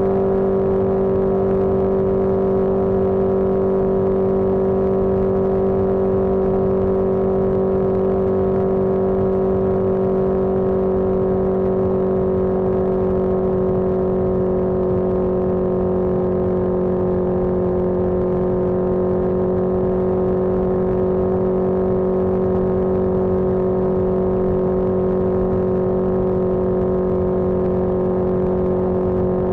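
1981 Yamaha XJ650 Maxim's air-cooled inline-four engine running at a steady cruise under way, its note holding even and easing very slightly in pitch, over a low rumble of road and wind.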